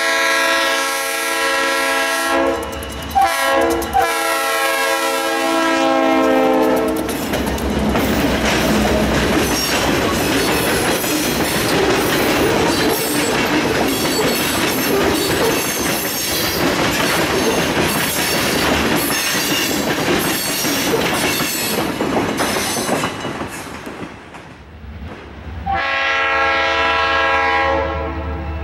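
Two EMD GP35 diesel locomotives blow their air horn in two long chords, the second sliding down in pitch as they pass. They are followed by the locomotives and a long string of covered hopper cars rolling by, wheels clacking over the rail joints. Near the end another long horn chord sounds.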